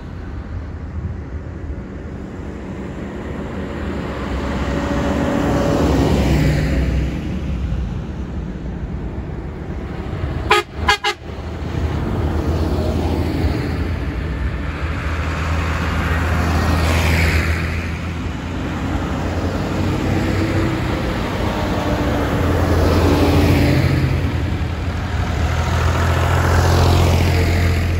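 A line of farm tractors driving past one after another, their diesel engines swelling and fading as each goes by. About ten seconds in comes a couple of very short horn toots.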